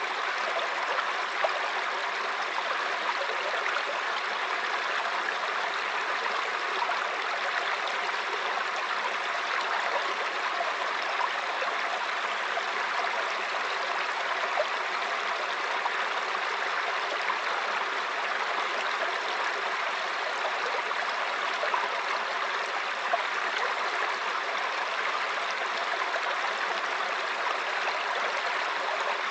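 River water flowing and babbling steadily, a continuous rushing with small splashy flickers.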